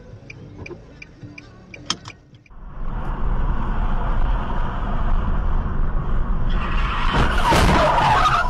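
Faint regular ticking, about three ticks a second. About two and a half seconds in it gives way to the loud, steady rumble and road noise of a car driving, heard from inside the car, which swells into a harsher, louder rush near the end.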